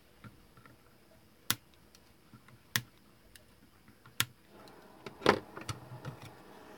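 Flush cutters snipping the excess leads of freshly soldered transistors off a circuit board: three sharp snips about a second and a half apart, followed by softer clicks and rustling.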